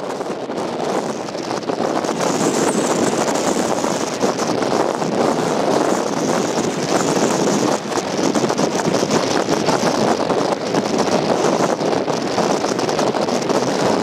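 Strong wind buffeting the built-in microphone of a Canon iVIS HF G20 camcorder that has no windscreen: a loud, steady rush of wind noise, with a steady high hiss above it.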